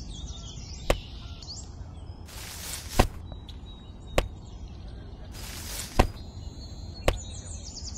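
Five sharp knocks or strikes at uneven intervals of one to two seconds, two of them led in by a short rising hiss, over faint bird chirps.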